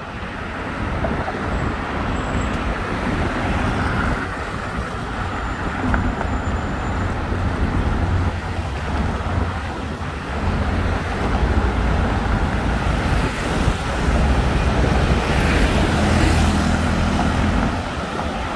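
Road traffic noise: cars and other vehicles running along a busy multi-lane road, a continuous rumble that grows louder in the second half as a vehicle passes close.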